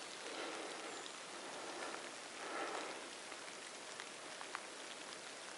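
Light rain falling steadily, a soft even hiss with a few faint drop ticks near the end.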